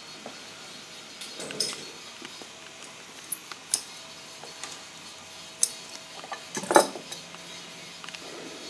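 Scattered sharp metallic clinks and clicks as hands handle an industrial sewing machine's head and the metal tools beside it, about five in all, the loudest about two-thirds of the way through.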